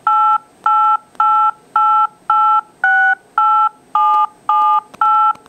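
A cellphone speaker plays a run of DTMF touch-tones into a landline handset's microphone, dialing the number 1-888-886-8778. The beeps are even, about two a second, each a short two-note tone. The pitch pair changes for the 6 and the two 7s near the end.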